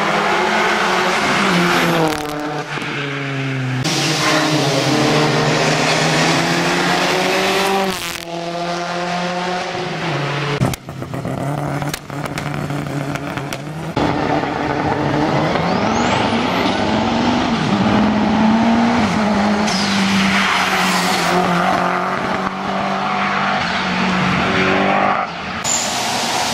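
Hill-climb race cars accelerating hard up a mountain road, one car after another, each engine revving up and dropping at every gear change.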